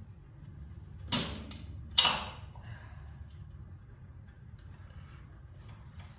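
Two sharp metallic clacks about a second apart, each ringing briefly, as parts are worked by hand on a tractor engine, followed by faint ticking and handling noises.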